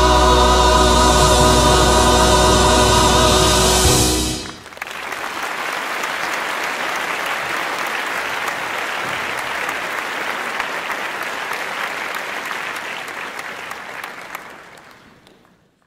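Choir and orchestra holding the final chord of a hymn, cutting off about four seconds in. A congregation then applauds, the clapping fading out near the end.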